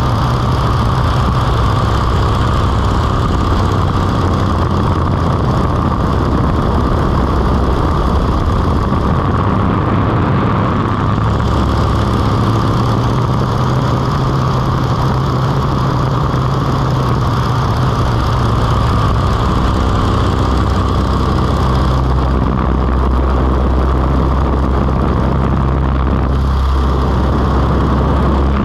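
Stearman biplane's radial engine running steadily in flight, with rushing wind over the wing-mounted camera. The engine note shifts twice, about a third and three quarters of the way through, as the plane changes attitude in aerobatic manoeuvres.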